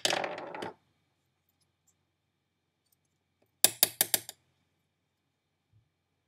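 A brief rustle of handling at the start, then a quick run of about six sharp clicks a little past halfway, as small hard fingerboard parts clatter together while being handled.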